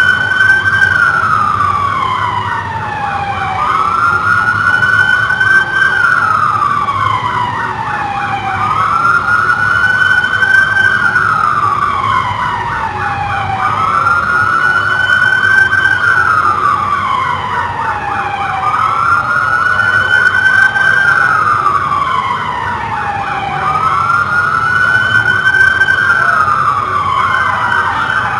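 Police car siren sounding in a wail pattern: the pitch climbs quickly, then falls slowly, and repeats about every five seconds.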